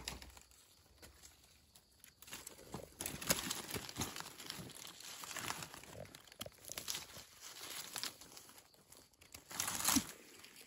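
Dry leaf litter and twigs rustling and crackling in irregular bursts as gloved hands dig wild mushrooms out of the forest floor, loudest just before the end.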